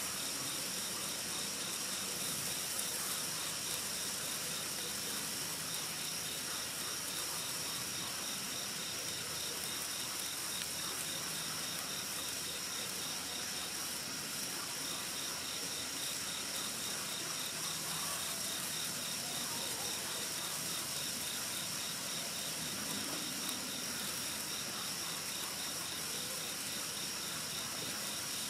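Hand-held fountain firework burning with a steady hiss as it sprays sparks. Crickets chirp throughout in a fast, even pulsing trill that pauses briefly about halfway.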